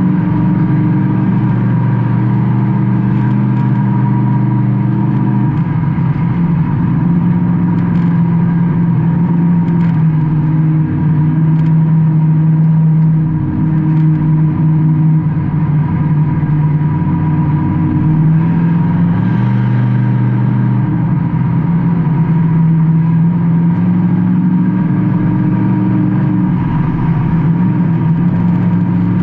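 Stock car engine heard from inside the car during a race, running hard. Every several seconds its pitch drops and then climbs back, as the car lifts for the turns and gets back on the throttle. A thin, steady high whine runs under it.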